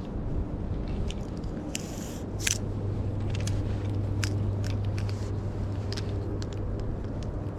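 Scattered sharp crackles and crunches over a steady low rumble of wind, with two brief rushing sounds about two seconds in.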